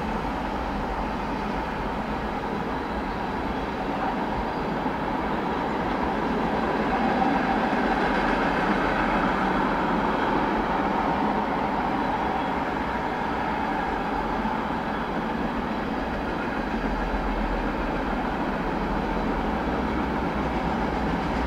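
Freight train rolling past, a steady, continuous rumble and rush of wheels on rail.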